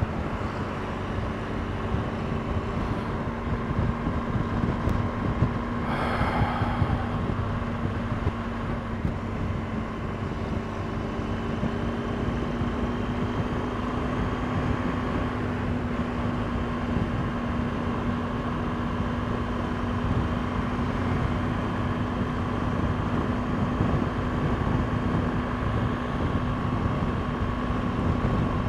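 BMW GS motorcycle's boxer-twin engine running at a steady motorway cruise, heard from the rider's seat together with road and wind noise. A brief, louder rush of noise comes about six seconds in.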